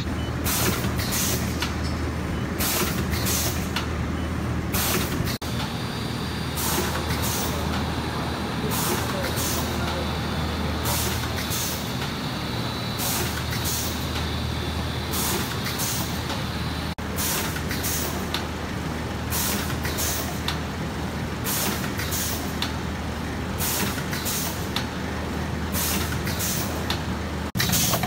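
Jelly sachet form-fill-seal packing machine running: short sharp hisses of air from its pneumatic cylinders, about one to two a second as the sealing jaws cycle, over a steady low machine hum.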